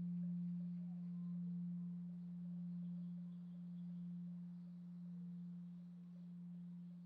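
Heungcheonsa's bronze Korean temple bell (beomjong) humming as it dies away after a strike: one deep tone fading slowly, swelling and ebbing in a slow, even pulse about every second and a half.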